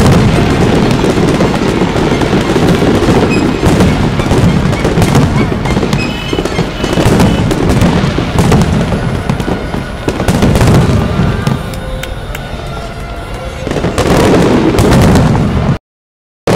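Aerial fireworks display bursting in a rapid, continuous barrage: many sharp reports and deep booms overlapping, with crackle between them. The sound cuts off suddenly near the end.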